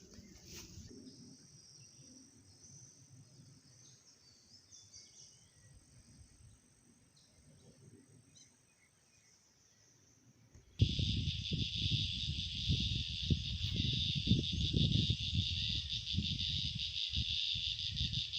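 Insects calling in a chorus: a faint high buzzing at first, then, abruptly about eleven seconds in, a loud dense shrill chorus over a low, uneven rumble on the microphone.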